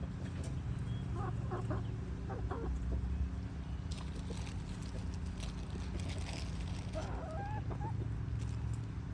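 Chickens clucking in short calls, in small clusters, over a steady low rumble.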